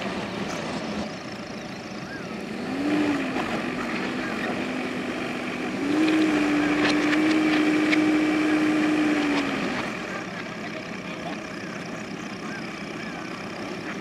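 JCB backhoe loader's diesel engine running, revving up briefly about three seconds in, then held at higher revs from about six seconds to nine and a half seconds before dropping back to a lower idle. The revs rise as the front loader is worked.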